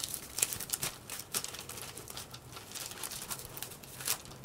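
Crumpled kitchen aluminum foil crinkling in soft, irregular little crackles as fingertips press and rub it down onto a glued cardboard shape.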